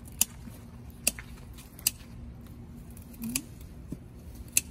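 Scissors snipping through water spinach stems: four sharp snips, the first three about a second apart and the last near the end.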